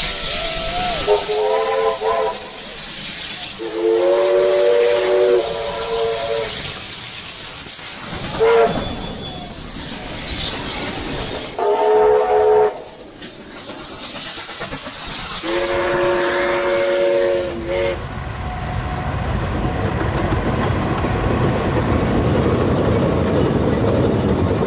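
Steam locomotive whistles blowing five times, short and long blasts, over the noise of trains running past at speed. From about 18 seconds a steady low rumble takes over.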